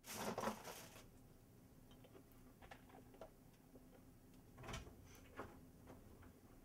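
A few short, sharp exhalations blown through pursed lips by a man throwing punches, over quiet room tone; the loudest pair comes right at the start and another about four and a half seconds in.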